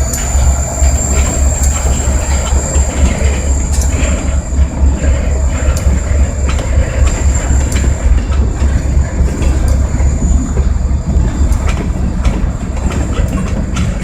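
EMD GP40-2 diesel locomotive, its turbocharged 16-cylinder engine giving a deep, fluttering rumble, with irregular sharp clicks of wheels over the rail joints and a thin high whine.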